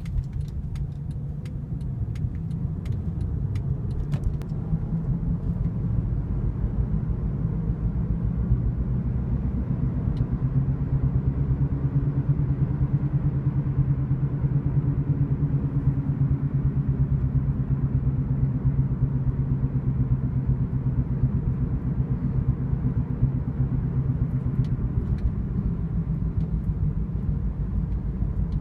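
Steady low whirring drone from a 2008 Honda Accord on the move, its hum growing stronger about a third of the way in and then holding. The owner cannot tell whether it is a wheel bearing, alignment, tire balance or unevenly worn tires.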